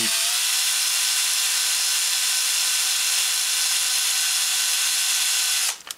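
Cordless screwdriver turning a 1.5 mm drill bit, drilling a pilot hole into a diecast toy car's metal body: a steady electric-motor whine. The whine cuts out briefly near the end.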